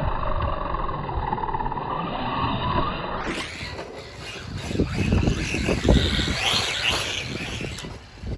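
Losi Baja Rey 1/10-scale RC truck driving over grass and dirt, its brushless electric motor whining up and down with the throttle and its tyres rumbling over the rough ground. The sound changes abruptly about three seconds in, with a fuller, rougher passage and a few thumps after that.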